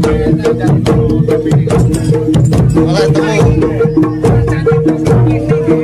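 Live Bantengan accompaniment music: hand drums beaten in a quick, steady rhythm over a short tune that repeats again and again.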